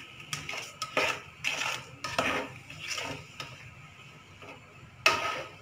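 Plastic spatula scraping and knocking against the inside of a black-coated pot, stirring chopped plums in sugar and their own juice. The strokes come irregularly about twice a second, grow quieter in the second half, and a louder clack comes near the end.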